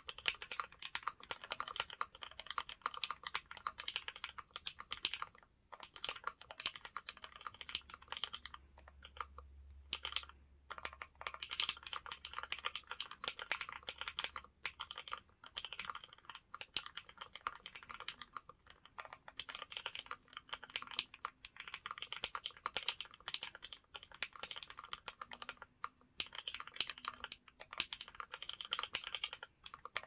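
Fast, continuous typing on a CandyBar Premium R2 mechanical keyboard with Banana Splits linear switches, lubed with Krytox 205g0 and filmed, Infinikey keycaps and shelf-liner dampening, set on a deskmat. Quick runs of keystrokes, broken by brief pauses about five, ten and sixteen seconds in.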